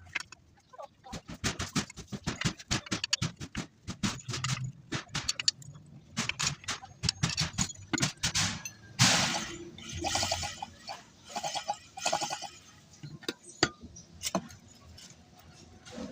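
Metal tools and alternator parts clicking and clinking in quick, irregular taps during bench work on the alternator.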